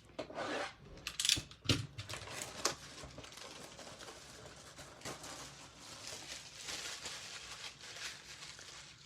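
Handling and opening a sealed sports-card hobby box: a few sharp taps and clicks in the first three seconds, then steady soft rustling and crinkling of packaging.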